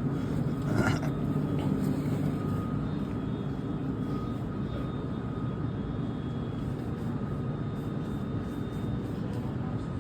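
A steady low rumble with a faint, steady high whine running through it, and a brief knock about a second in.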